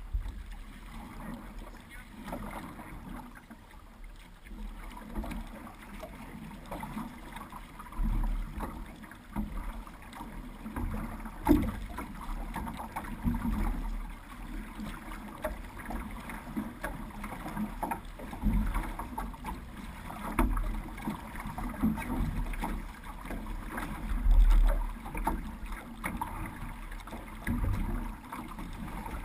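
Paddle strokes and water lapping and splashing against the hull of a six-person outrigger canoe under way, with low thuds every couple of seconds.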